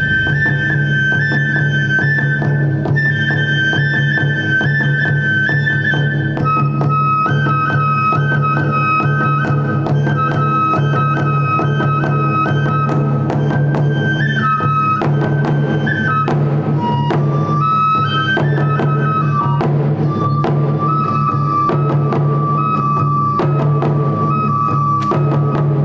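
Japanese festival music: a bamboo flute plays a melody of long held notes that step to new pitches every few seconds, over continuous taiko drumming with quick, even strokes.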